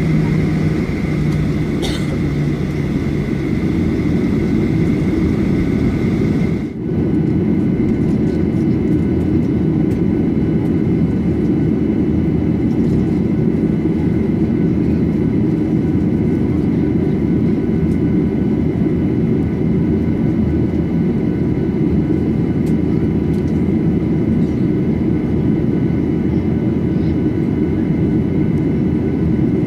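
Steady cabin noise of a Boeing 737-800 on the ground with its CFM56-7B engines at idle, heard from a seat by the wing during the taxi to de-icing. A thin high whine stops at a brief dip about seven seconds in, after which the even engine and airflow noise carries on.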